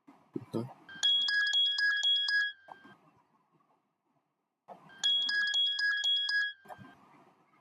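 Vodafone mobile phone ringtone: a short phrase of quick high notes, played twice about four seconds apart with a silent gap between.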